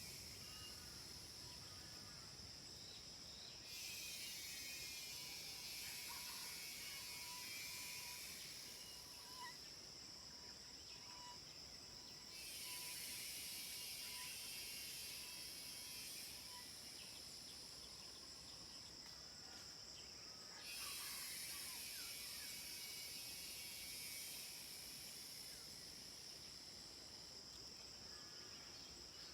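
Cicadas calling in a steady, high-pitched drone that swells much louder three times, each time for several seconds. Faint, short bird notes repeat in the background.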